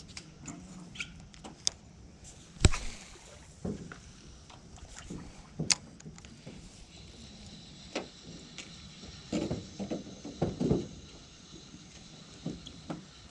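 Scattered knocks and clicks of fishing gear being handled in a small boat, the loudest a sharp knock nearly three seconds in, with a cluster of duller thumps around ten seconds in.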